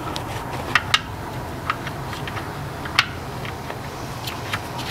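A few scattered sharp, light clicks as a brass Fumoto oil drain valve extension is threaded by hand into the oil pan drain hole, over a steady low hum.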